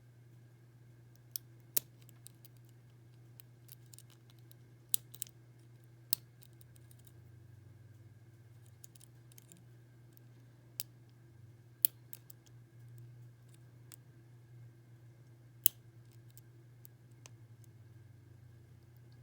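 Lock pick working the pins of a six-pin First Watch padlock under tension: a dozen or so sharp, scattered clicks at uneven intervals as pins are lifted and set. A steady low hum runs underneath.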